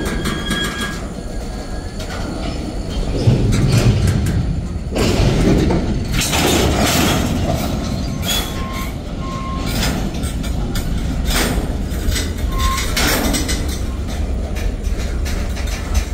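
Freight cars of a mixed manifest train rolling past close by: a steady rumble with the clatter of steel wheels over the rails, swelling louder now and then as cars pass.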